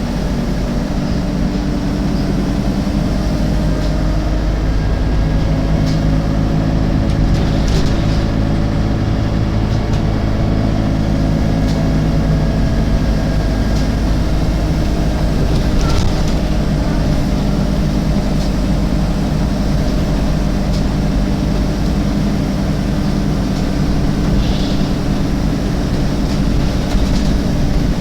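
Alexander Dennis Enviro 300 bus on MAN chassis, its diesel engine running steadily, with a few sharp clicks spaced several seconds apart: the clicking noise the bus is making.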